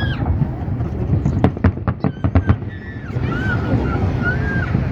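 Fireworks exploding: a quick run of sharp cracks and bangs about a second and a half in, over a steady crowd murmur.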